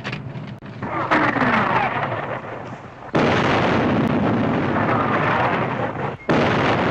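Artillery shell explosions: sudden loud blasts about one, three and six seconds in, the middle one rumbling on for about three seconds, with a falling whistle over the first.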